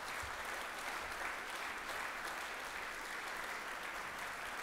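Audience applauding steadily for an award recipient as he comes up to accept.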